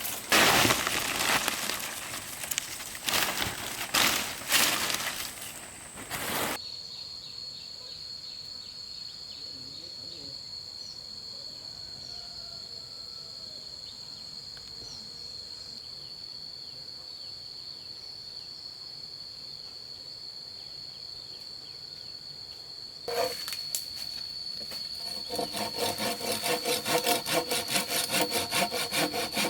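Loud noisy rustling and knocking for the first six seconds, then a steady high, thin insect drone with little else for about sixteen seconds. Near the end, rhythmic saw strokes, about three a second, cutting bamboo.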